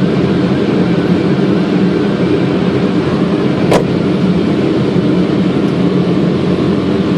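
Steady flight-deck noise of a Boeing 777 on final approach: an even rush of air with a low hum, and one sharp click about halfway through.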